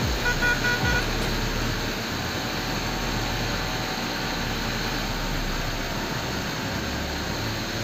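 Modified Bajaj Pulsar 220F motorcycle under way, its engine and the wind rush steady. A short horn toot sounds near the start.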